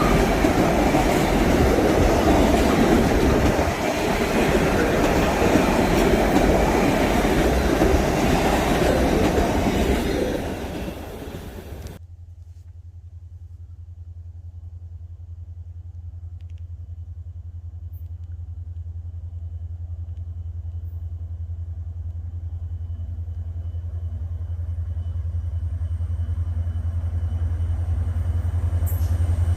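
Freight train wagons rolling past with continuous rail rumble and clatter, cut off abruptly about twelve seconds in. After that comes a low, steady drone that slowly grows louder.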